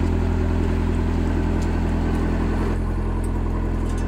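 Diesel engine of a double-drum asphalt road roller running steadily close by, with a deep, even hum.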